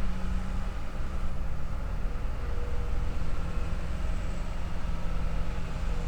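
Wood lathe running with a steady low hum.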